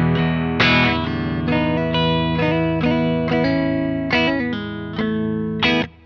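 Electric guitar played through a GFI System Jonassus Drive analog overdrive pedal: chords are struck and left to ring, with a new chord every second or so. The sound cuts off sharply near the end.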